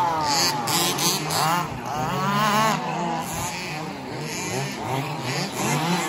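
Several electric radio-controlled 2WD buggies racing, their motors whining and the pitch rising and falling over and over as they accelerate and brake.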